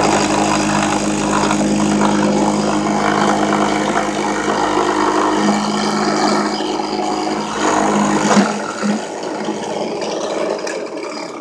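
Drill press running a 5/16 end mill that side-mills plastic cutting-board stock: a steady motor hum under a loud, even cutting noise. About eight seconds in, the low hum drops out and the sound fades as the press winds down.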